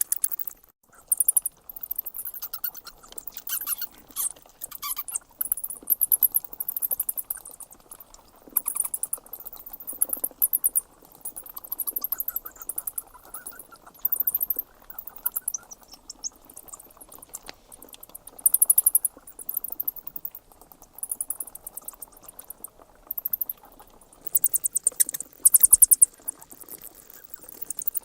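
Bats squeaking: high-pitched rapid chittering that comes in short bursts every second or two, over a steady background hiss.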